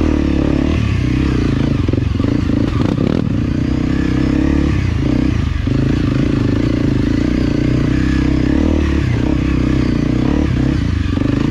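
Enduro dirt-bike engine running steadily on a trail, its pitch holding fairly even, with a few short knocks from the bike over rough ground.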